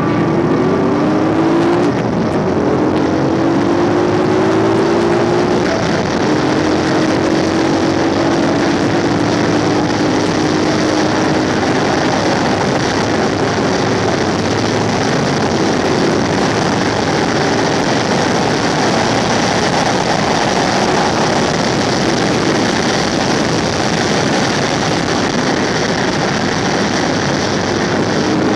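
A motorcycle engine pulls away, rising in pitch through a couple of gear changes over the first few seconds, then holds a steady note at cruising speed. A constant rush of wind and road noise on the helmet camera's microphone runs over it.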